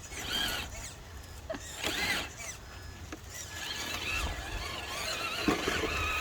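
Electric motor and gearbox of a 1/10-scale RC rock crawler whining. The pitch rises and falls with the throttle: two short bursts, then a longer run from about halfway through.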